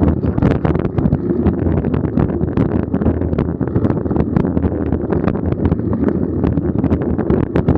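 Mountain bike rolling along a dirt singletrack: a steady rumble of tyres on the trail with wind buffeting the microphone, and frequent small clicks and rattles from the bike over the bumps.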